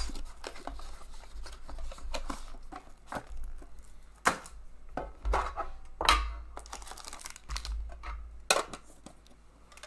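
Plastic wrapping being torn and crinkled off a 2014-15 Upper Deck Premier hockey card box as it is opened, with several sharp crackles.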